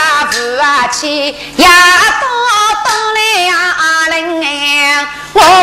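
A woman singing a Yao opera aria, her pitch bending and wavering on held notes, with a short break about a second and a half in.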